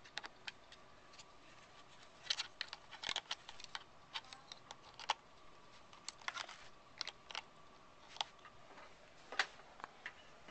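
Faint, irregular clicks and scrapes of a USB flash drive being handled and pushed into a laptop's USB port, several coming in small clusters.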